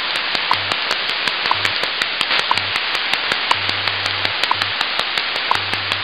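WWV shortwave time signal heard through a receiver: steady static hiss with a short tick about once a second, and low hum pulses of short and longer lengths carrying the station's time code.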